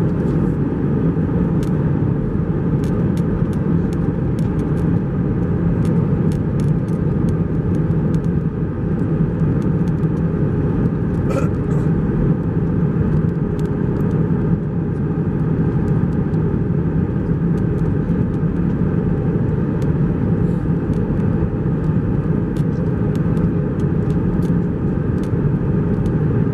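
Steady cabin noise of an Airbus A321 heard from a window seat over the wing during descent: the IAE V2500 turbofan engines and rushing airflow as one even rumble with a low hum. Faint clicks and ticks are scattered through it.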